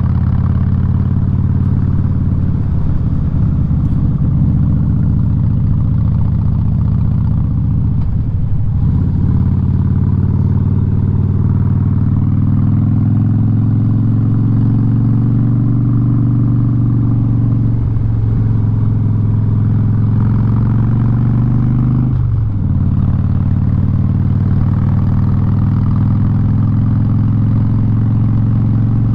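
Harley-Davidson Street Bob's V-twin running loud through its Vance & Hines exhaust while riding. The note climbs slowly for stretches of several seconds and dips briefly about a third of the way in, twice more in the second half, and at the very end.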